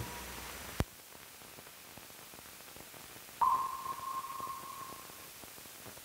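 Old film soundtrack hiss with faint crackle, cut by a sharp click a little under a second in. About three and a half seconds in, a steady single tone starts suddenly and fades out over a second or two.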